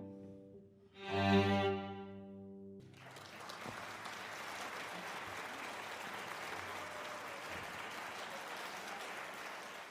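String trio of violin, viola and cello sounding a final sustained chord that cuts off about three seconds in, followed by steady audience applause.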